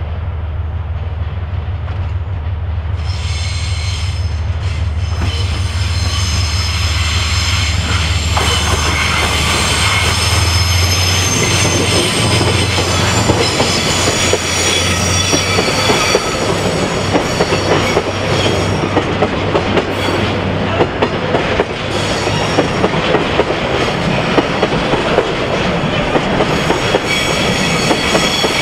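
A JR Freight DF200 diesel-electric locomotive passes slowly with its engine humming, and its wheels begin squealing on the curve a few seconds in. The engine hum fades about eleven seconds in as it goes by. A train of oil tank wagons follows, rolling past with squealing wheel flanges and repeated clacks over the rail joints.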